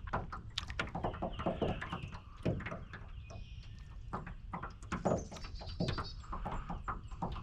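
A run of irregular light clicks and knocks, several a second, with a few faint high bird chirps in between.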